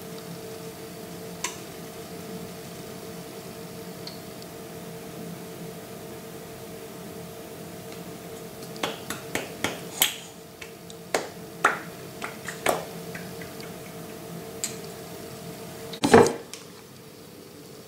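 Scattered sharp clicks and light taps from a sauce bottle being handled over a clay plate, bunched together for a few seconds past the middle, over a steady hum. A single louder knock comes near the end.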